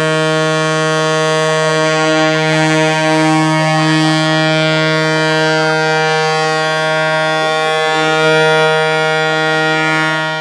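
Horns of submarines berthed in port sounding one long, steady, low-pitched blast to welcome a returning submarine home.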